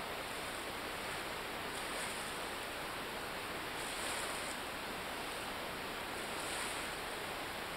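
Steady hiss of ocean surf on a beach, with soft swells about every two seconds.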